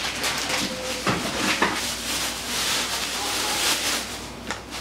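Plastic grocery bags rustling and crinkling as items are handled and pulled out, a busy crackle that grows loudest near the end.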